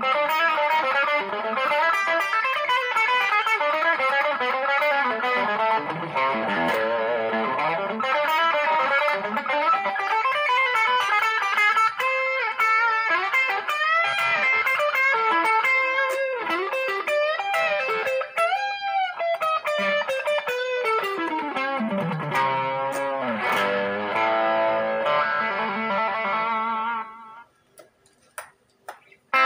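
Squier Vintage Modified Stratocaster electric guitar played through Boss stompbox effects pedals: a continuous lead line of sustained notes with string bends and vibrato. A long falling slide comes a little past the middle, and the playing stops about two seconds before the end.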